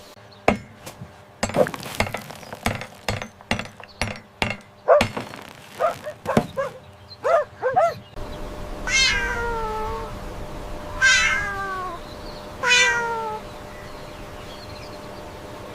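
A quick run of sharp clicks and knocks, mixed with short high chirps, is followed by three long meows, each sliding down in pitch.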